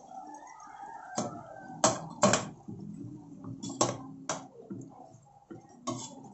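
Spatula knocking and scraping against an aluminium pot while stirring and turning pork pieces in simmering sauce: about six sharp knocks, spread through the stirring.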